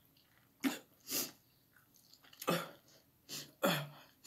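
A person coughing and huffing out sharp breaths in about five short bursts, some ending in a brief falling grunt, a reaction to the burn of very spicy noodles.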